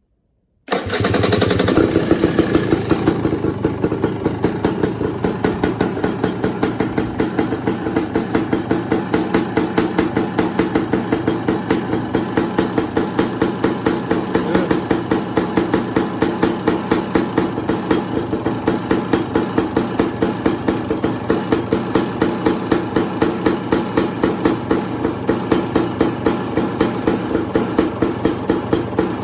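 2018 KTM 300 XCW's single-cylinder two-stroke engine, freshly rebuilt top end and Lectron carburettor, firing on its first start about half a second in. It revs briefly, then settles into a steady, pulsing idle.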